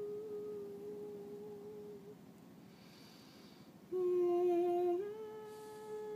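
A woman humming long held notes with closed lips. A steady note fades out about two seconds in, and after a short pause a louder, lower note sounds for about a second. It then steps back up to the first pitch and holds it.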